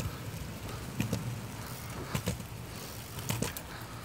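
Skateboard wheels rolling on a concrete path with a steady low rumble, and sharp double clacks about once a second as the wheels cross the joints in the pavement.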